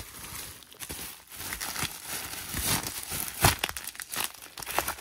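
Bubble wrap crinkling and crackling irregularly as hands open a bubble wrap pouch and slide a plastic-sleeved bag out of it, with a louder crackle about three and a half seconds in.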